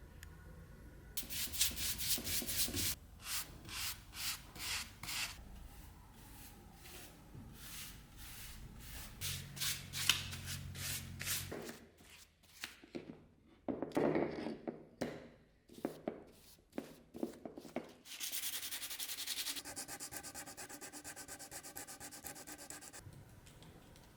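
Sandpaper rubbing over wood by hand in quick back-and-forth strokes, coming in several runs, with a denser, faster stretch of rubbing near the end.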